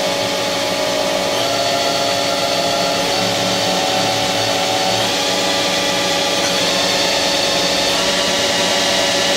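Haas SL-30T CNC lathe spindle spinning up from 1,000 toward about 2,000 RPM, a steady machine whine whose tones step up in pitch a few times as the speed is raised.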